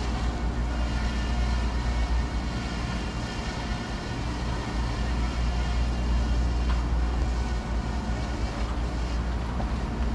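Steady hum of running rooftop air-conditioning condensing units: a deep drone with several steady higher tones above it.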